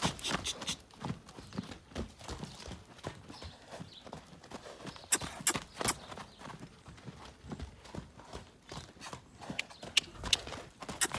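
Hoofbeats of a 7/8 Friesian mare trotting and cantering on a lunge line over packed dirt: an uneven run of thuds, with a few sharper clicks about halfway through and again near the end.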